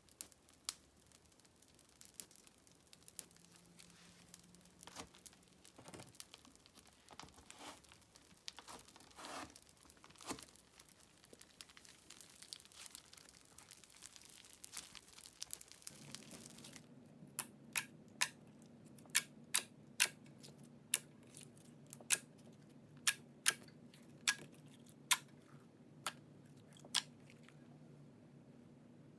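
Slime being squeezed and stretched by hand, with irregular crackling and crinkling. Past the halfway mark this gives way to a run of sharp popping clicks, about one or two a second, over a faint steady hum.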